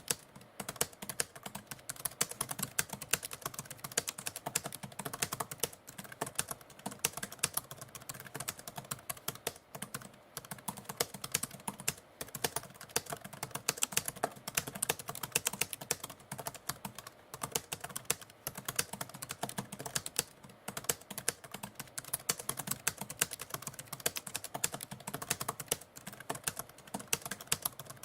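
Manual typewriter being typed on at a steady pace: a quick run of key strikes, several a second, with short pauses between bursts.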